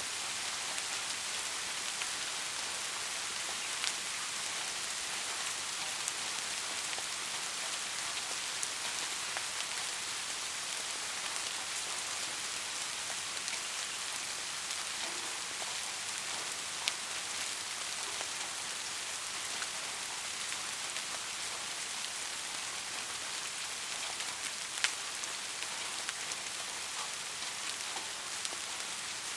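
Steady rainfall, an even hiss of many drops, with a few louder single drop hits standing out now and then.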